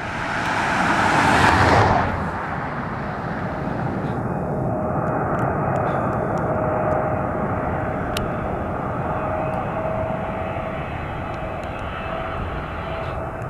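Jet engines of a Boeing 777-300ER on final approach: a steady rumbling rush with a faint whine held on one pitch. In the first two seconds a louder rushing hiss sits over it and cuts off suddenly.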